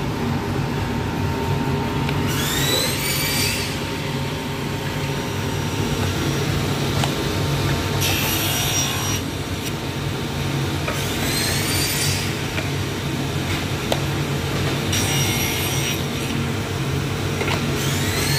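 Table saw running steadily, with the blade cutting through wood five times as a crosscut sled carries the pieces past it, each cut a brief harsher rise over the motor's hum.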